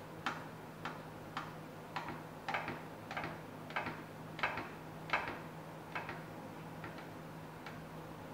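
Kitchen knife cutting a soft sponge cake on a stainless-steel plate, its tip clicking against the steel with each downward cut: about a dozen sharp clicks roughly every half second, fainter near the end.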